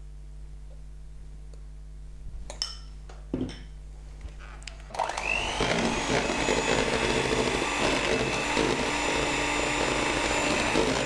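A few light knocks, then about five seconds in an electric hand mixer starts with a rising whine and runs steadily, its beaters whipping cream in a plastic bowl as it thickens.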